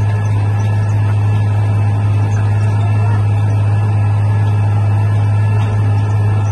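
John Deere 8410 tractor's six-cylinder diesel engine running steadily under load while pulling an air seeder through the field, a constant deep drone that holds its pitch throughout.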